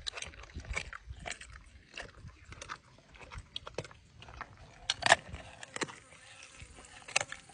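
Jaguar biting and chewing raw chicken: irregular wet crunches and clicks, the loudest a little after five seconds.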